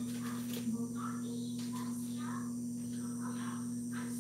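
Steady low hum that holds a constant pitch, with faint, indistinct sounds scattered over it.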